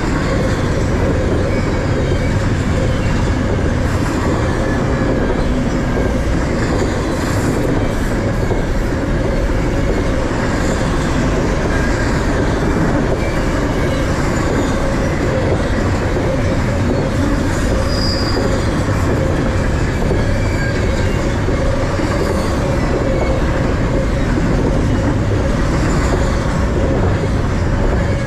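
BNSF freight train rolling past close by, its cars making a loud steady rumble with a thin, steady squeal from the wheels and occasional sharp clacks.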